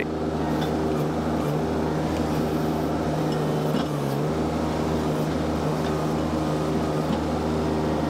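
Mini skid steer's engine running steadily as the machine is driven, its pitch dipping briefly about four seconds in.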